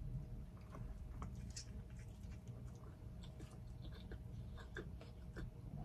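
A person chewing a bite of cheeseburger, faint and irregular, with many small wet mouth clicks.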